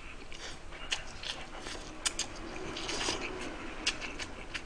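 Close-miked eating: a mouthful of instant noodles slurped and chewed, with many short wet mouth clicks and smacks.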